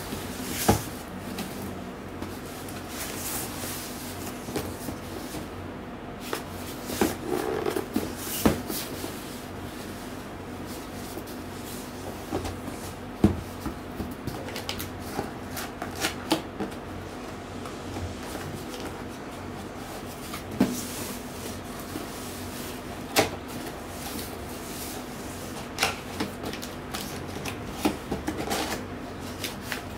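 Cardboard monitor box being handled on a table: scattered knocks and taps as it is turned over and set down, with rubbing and scraping of the cardboard.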